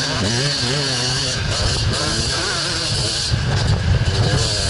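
Dirt bike engine revving as the bike is ridden over snow, its pitch rising and falling with the throttle, over a steady hiss.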